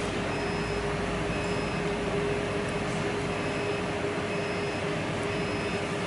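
Steady machine hum of a CNC wheel repair lathe running, with a constant mid-pitched tone and a faint high-pitched tone that repeats about once a second.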